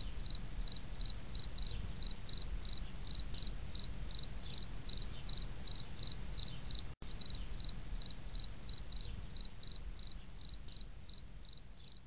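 Cricket chirping steadily, about three short high chirps a second, over a low background rumble; the sound cuts out for an instant about seven seconds in.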